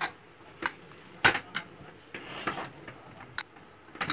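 Aluminium pressure cooker being opened after cooking: the weight on the steam vent lifted off and the lid twisted loose, giving scattered metal clicks and clinks, the loudest about a second in.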